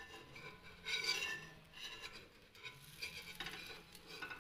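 Metal spatula and spoon scraping and rubbing against a non-stick pan as they work under a frying besan-and-egg omelet to loosen it for flipping. There are several uneven strokes, the loudest about a second in.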